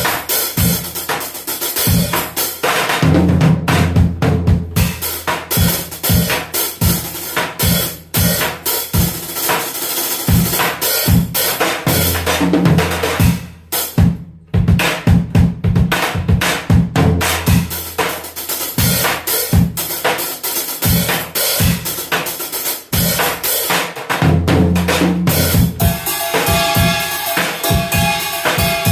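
Drum kit played continuously with busy grooves and fills across bass drum, snare and cymbals, with a brief break about halfway through; the snare has an odd, off sound.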